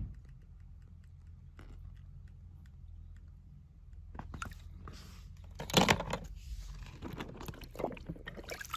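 Faint clicking and handling noises, with a few louder crunching scrapes about four and a half, six and eight seconds in.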